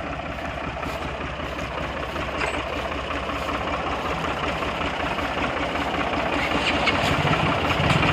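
New Holland tractor's diesel engine running as the tractor is driven along, growing louder as it comes closer.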